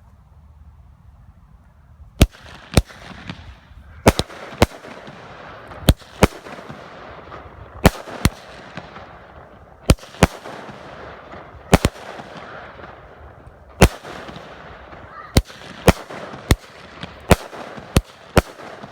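Fireworks going off in a grand finale. After a short lull come loud sharp bangs, at first in pairs about every two seconds, then coming faster near the end, with crackle between them.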